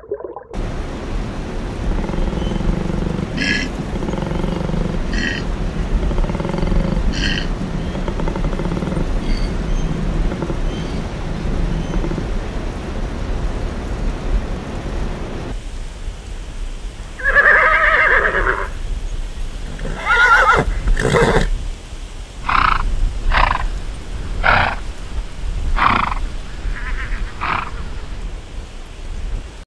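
Koala bellowing with a long, low rumble for about fifteen seconds. Then a horse whinnies loudly once, followed by a run of shorter neighs about a second apart.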